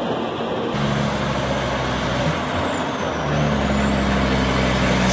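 Heavy livestock truck's diesel engine running steadily at low speed, with a faint high whine that dips and then rises again midway.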